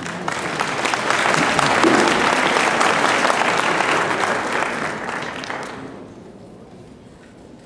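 Audience applauding in a hall. The clapping swells within the first second, holds for several seconds and dies away about six seconds in.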